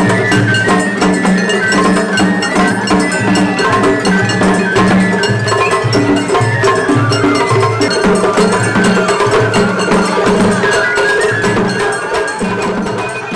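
Japanese festival float music (matsuri hayashi): drums with a small hand gong clanging out a fast, steady beat, and a flute line above.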